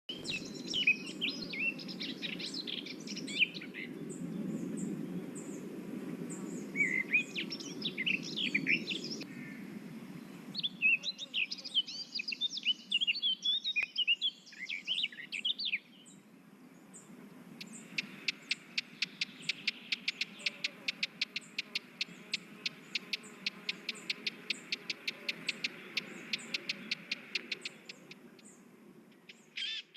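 Small birds singing in quick bursts of chirping song, then a fast, even series of repeated short notes, about five a second for some ten seconds. A low rumble runs underneath, heaviest in the first few seconds.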